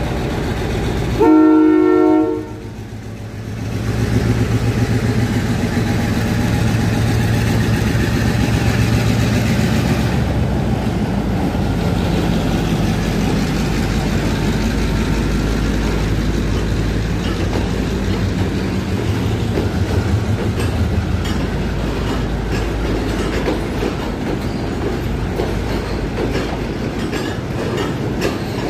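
Sri Lanka Railways M2-class diesel locomotive gives one short multi-tone horn blast about a second in, then its engine rumble builds as it passes, followed by the carriages rolling by with clickety-clack over the rail joints.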